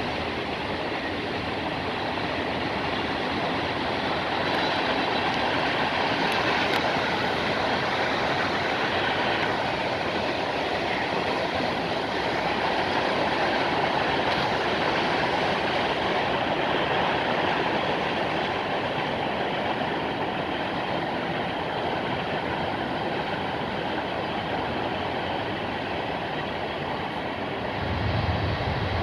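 Freight train cars rolling past on the rails, making a steady rolling rumble of steel wheels on track. A deeper low rumble comes in near the end.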